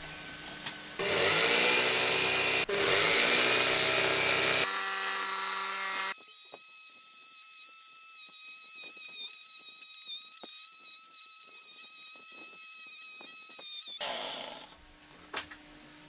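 Electric jigsaw driving the blade of a home-made scroll saw, running and cutting a curve through a wooden board. It starts loud about a second in; from about six seconds it becomes a steady high-pitched whine with small clicks, then stops shortly before the end.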